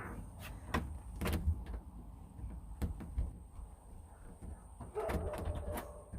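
A shed door with a newly installed doorknob being worked: the knob turned and the door opened and pulled shut, giving several sharp latch clicks and knocks and a short creak about five seconds in. The latch is catching, now that the doorknob has been replaced.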